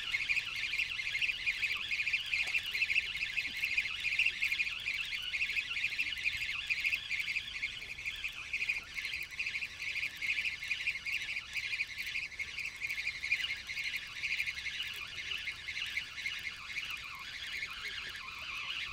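A dense, unbroken chorus of fast, high-pitched chirping from animals.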